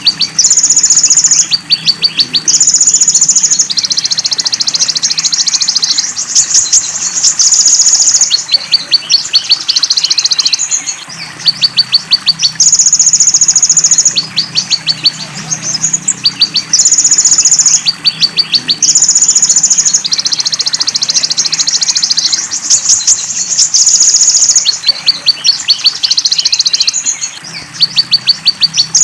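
Purple-throated sunbird (konin) singing a song filled with mimicked belalang emas and cililin phrases: loud, high, fast buzzy trills about a second long alternating with rapid series of ticking notes, repeated over and over.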